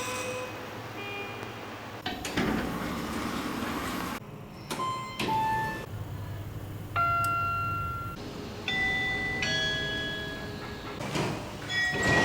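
Kone elevator chimes and beeps in quick succession, some short, one held tone near the middle, between the rumble and clunks of lift doors. The snippets come from several different lifts cut one after another.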